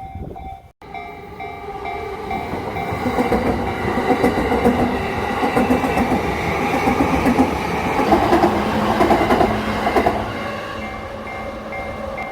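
Yamanote Line train passing over a level crossing: the rumble of wheels on rails builds, is loudest for several seconds in the middle, then eases off. The crossing's warning bell rings steadily and repeatedly underneath the whole time.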